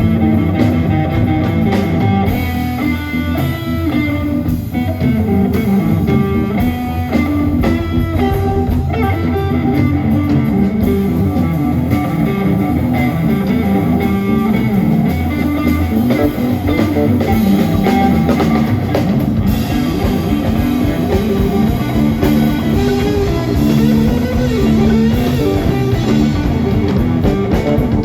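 Live blues-rock band playing an instrumental passage: electric guitar lead lines over bass and drum kit.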